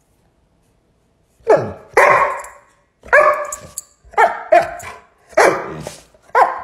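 Repeated barking: after a short pause, about eight short barks come in quick pairs and singles. A dog is barking back at a man who woofs at it.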